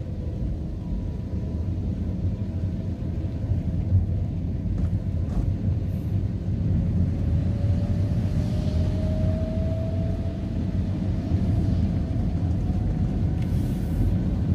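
Steady low rumble of a car driving on a wet road, heard from inside the cabin, with a faint hum that slowly rises in pitch over several seconds.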